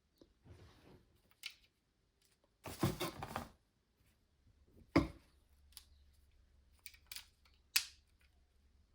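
A small flexible tripod being handled: a scraping rustle about three seconds in, a sharp knock about five seconds in, and a few short clicks near the end.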